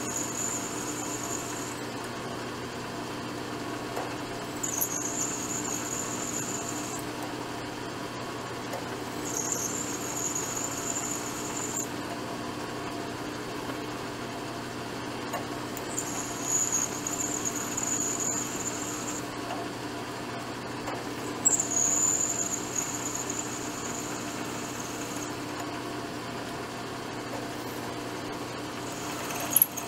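A milling machine's spindle runs steadily while its drill bit cuts a hole through a metal part. The bit squeals high-pitched in five separate bouts of two to three seconds each.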